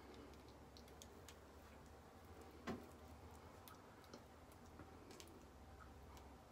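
Near silence with faint scattered clicks and small wet mouth sounds as a fresh strawberry is bitten and handled, and one louder short sound about two and a half seconds in. A low steady hum runs underneath.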